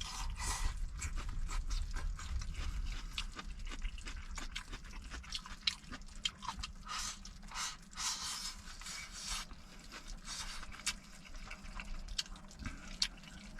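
Close-up meal sounds: scattered small clicks and scrapes of utensils with wet, liquid noises of food being eaten.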